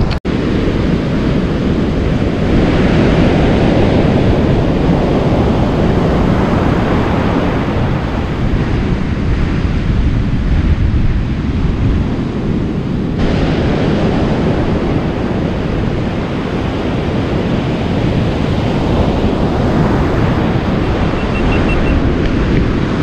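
Ocean surf breaking and washing up a sandy beach, with wind buffeting the microphone. The wash swells twice, once near the start and again near the end, and the sound changes abruptly a little past halfway.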